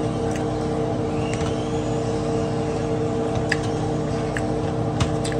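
Steady machine hum with several fixed tones, and a few light clicks and taps as food is picked from a plastic container.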